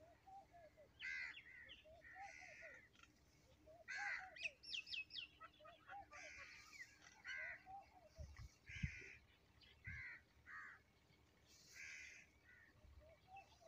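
Faint bird calls: harsh calls repeated every second or two, with a quick run of high chirps about four to five seconds in. A soft low bump comes a little before nine seconds in.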